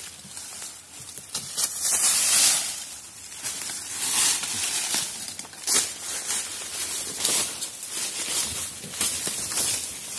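Footsteps crunching through a thick layer of dry bamboo leaves, with rustling as the walkers brush past bamboo stems, in irregular bursts.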